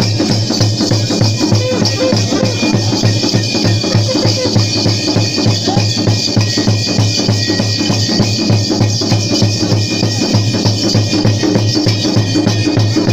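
Folk percussion: drums beating a fast, steady rhythm with the jingling of ankle bells on stamping dancers.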